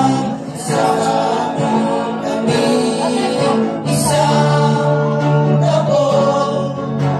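A group of men singing a gospel song together, accompanied by electric guitar.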